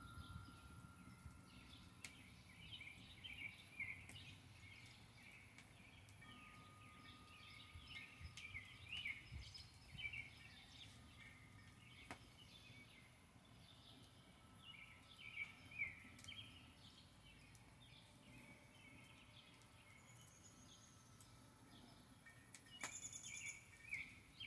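Faint chorus of small birds, many short chirps and twitters overlapping throughout, with a few isolated sharp clicks.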